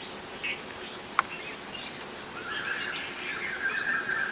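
A group of white-crested laughingthrushes breaks into a chattering chorus about two seconds in, growing louder. Under it runs a steady high insect drone, and there is one sharp click a little after one second.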